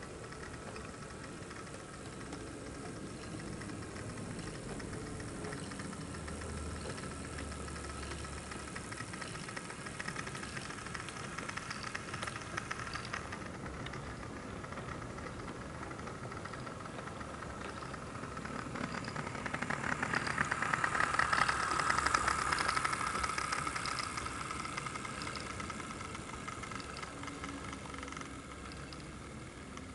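Model Class 08 diesel shunter running through the station: a steady engine hum with rattling wheels on the track, growing louder around twenty seconds in and then fading.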